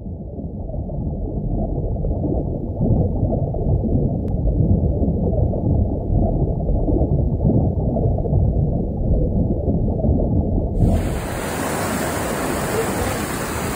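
Muffled underwater rumble with gurgling, all low and dull, for about eleven seconds. It cuts off suddenly into the full, bright wash of breaking surf, with wind on the microphone, near the end.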